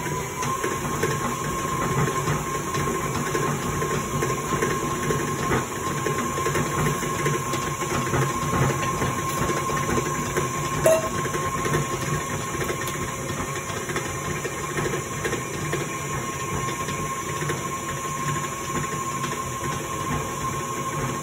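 Electric tilt-head stand mixer running steadily with its paddle beater, creaming butter and sugar: a steady motor whine over a low hum and the churn of the mix in the steel bowl. A single short metallic clink about halfway through.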